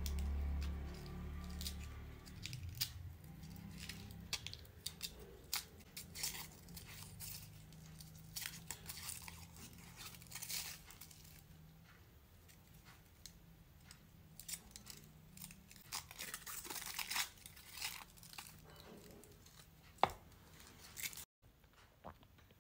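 Gold foil wrapper being peeled and torn off a cone-shaped candy on a stick, with irregular crinkling and crackling throughout.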